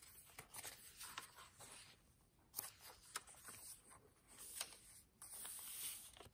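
Faint rustling and a few soft taps of paper pages being turned and smoothed flat in a handmade journal.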